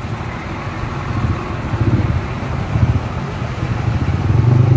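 Heavy cargo truck's diesel engine running as the truck rolls slowly past, a steady low hum that grows a little louder near the end.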